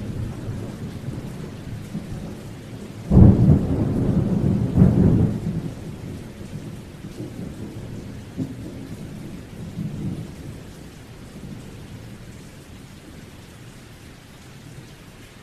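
Thunder with rain falling: a sudden loud peal about three seconds in and another about five seconds in, then the rumble slowly dies away.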